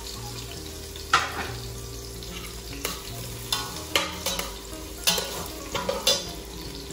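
Food sizzling in a pan as it is stirred, with a metal spoon clinking and scraping against the pan about eight times.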